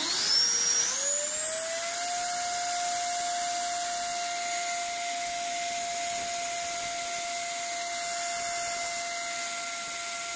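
50 mm electric ducted fan in a 3D-printed fuselage section, spooling up on a thrust test stand: a rising whine over the first two seconds, then a steady high-pitched whine with rushing air as it holds full power.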